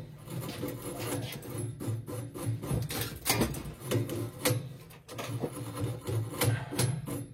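Wire brush scrubbing the threads of a threaded pipe, a run of irregular rasping strokes to clean them up.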